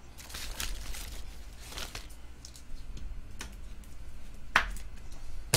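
Trading cards and their clear plastic sleeves being handled: short rustles and sliding, then a few sharp clicks, the loudest about four and a half seconds in.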